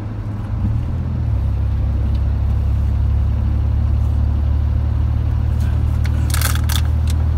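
Steady low rumble of a car's engine and road noise heard from inside the cabin at highway speed, growing louder about a second in. A brief rustle of a few short noisy bursts about six seconds in.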